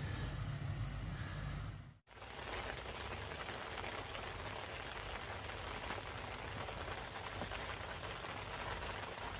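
A low rumble for about two seconds, then, after a sudden break, steady rain falling on the lake water and the waterside plants, an even hiss without any rhythm.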